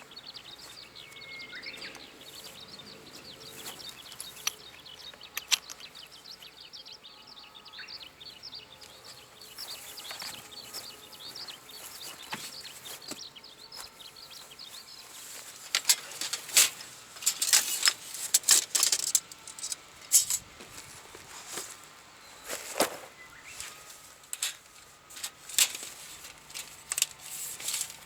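Birds chirping faintly in the background, then from about halfway a run of sharp clicks and knocks, loudest near the end.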